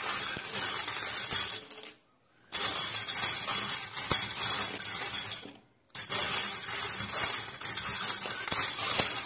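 Bangles jangling and clinking against each other and a stainless-steel bowl as a hand stirs them around to shuffle them: a continuous jingling clatter, broken by two brief dead silences about two and five and a half seconds in.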